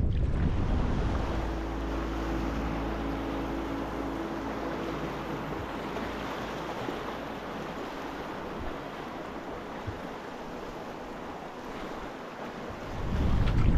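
Rushing river water making a steady hiss, with wind buffeting the microphone at the start and again near the end.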